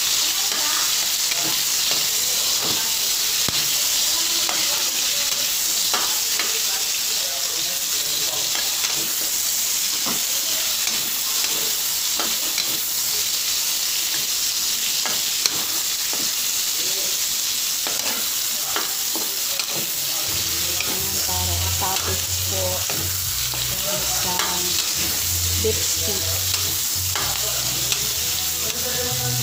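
Sliced onions sizzling in hot oil in a wok, with a metal spatula scraping and clicking against the pan as they are stirred. A low hum joins about two-thirds of the way through.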